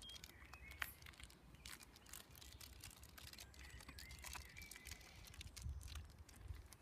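Faint crinkling and clicking of plastic blind-bag packaging being handled and pulled at while trying to open it, over a low rumble of wind on the microphone.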